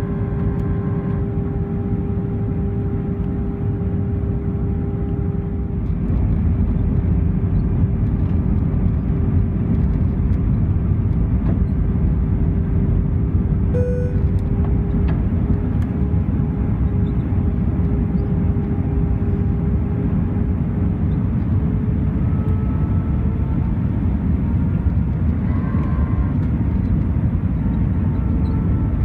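Airbus A320 cabin noise on descent: a steady rush of airflow over a low engine drone with a held tone. The noise grows louder about six seconds in, and higher engine tones shift slightly near the end.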